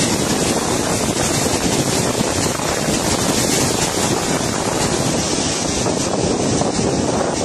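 Muddy floodwater rushing down a wide riverbed in a steady, loud wash of noise, with wind on the microphone.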